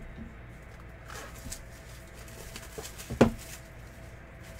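A cardboard trading-card box handled on a tabletop: a few soft rustles and taps, then one sharp knock a little past three seconds in as the box is set down on the table.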